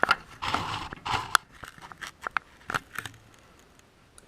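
Tools and wood being handled on a workbench: a run of sharp knocks and clicks with short rustling scrapes over about three seconds, then it goes quiet.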